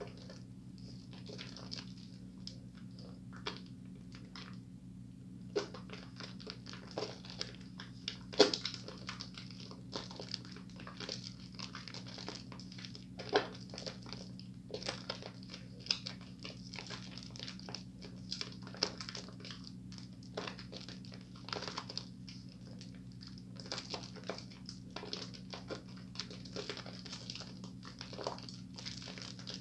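A bar of Moisture Blast soap being worked between wet hands into thick foam: irregular wet squishing and crackling of lather, with a sharp squelch about eight seconds in and another about thirteen seconds in. A steady low hum runs underneath.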